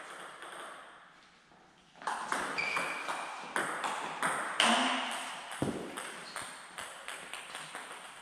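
Table tennis rally: the ball clicking sharply off bats and table in quick, irregular succession, starting about two seconds in. Near the end the ball bounces on the floor, the bounces coming faster and fainter as it settles.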